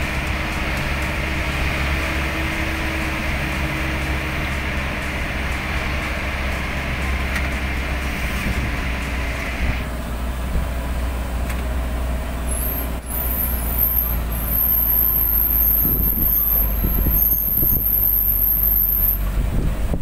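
Steady running noise of a moving road vehicle: an engine rumble with tyres on a wet concrete road. The higher hiss drops away about halfway through, and the low rumble grows a little louder after that.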